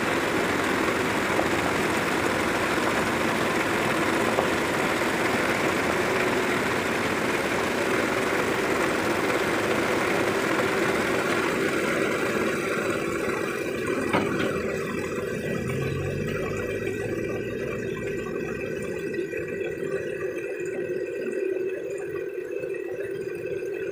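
Heavy tow truck's diesel engine running steadily close by during a recovery pull. The sound drops slightly in level about halfway through, as its higher hiss dies away.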